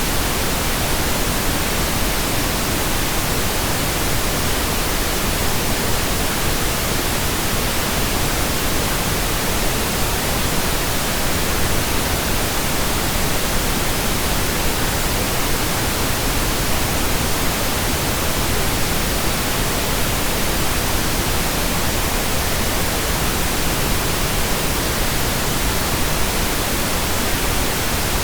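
Steady, unchanging pink noise: an even hiss across the whole range from deep to high, with no tones or events in it.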